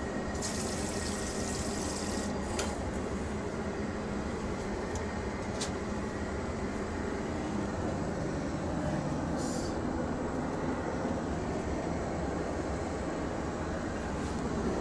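Steady airliner cabin drone heard from inside the lavatory, with a hiss of about a second and a half near the start as the vacuum toilet is flushed. A few light clicks and another short hiss follow later.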